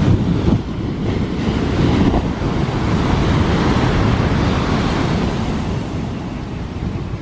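Big ocean surf breaking and rushing on the shore, with wind buffeting the microphone; the wash eases off near the end.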